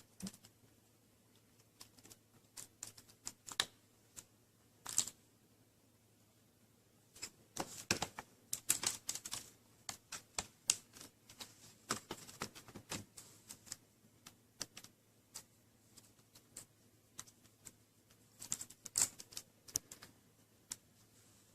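Irregular small clicks and taps from a PH1 Phillips screwdriver backing screws out of a laptop's LCD screen mounts, with the small screws handled and set down. The clicks come in clusters, thickest in the middle and again near the end.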